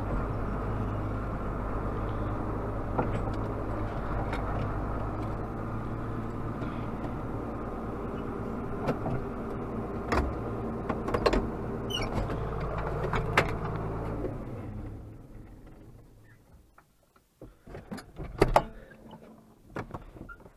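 John Deere 4440 tractor's diesel engine running steadily, with scattered clicks and rattles over it, then shut off about fifteen seconds in and dying away. A few sharp clicks and knocks follow in the quiet.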